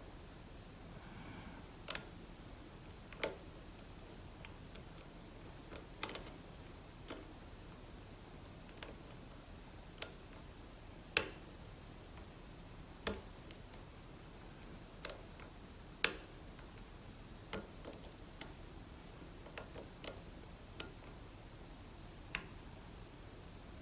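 Irregular sharp clicks from a pick working the pin tumblers of an Assa Abloy Arrow lock cylinder, about one every second or two.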